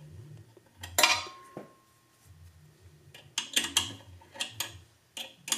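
Sharp metal clicks and clinks of a hex key working the set screw in the steel guide block of a Delta 9-inch bandsaw. The loudest clink comes about a second in and rings briefly. A quick run of lighter clicks follows past the middle, and two more come near the end.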